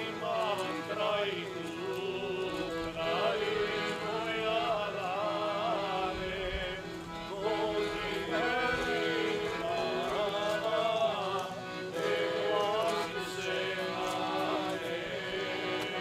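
Men singing a Serbian folk song together, several voices in long wavering phrases with brief pauses between them.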